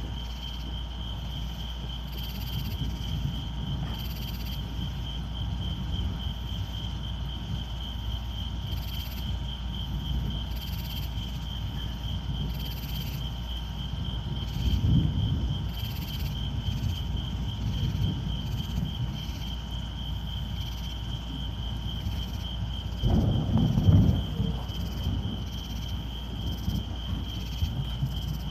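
Crickets chirping in a steady, fast-pulsing high trill, over a low rumbling background that swells louder about halfway through and again near the end.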